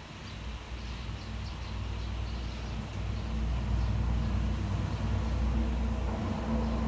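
Steady rain hiss with a low engine rumble, like a vehicle close by, that grows louder over the first three seconds and then holds.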